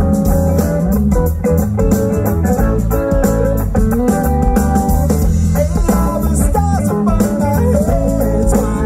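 A live rock band playing: electric guitars over bass and drums.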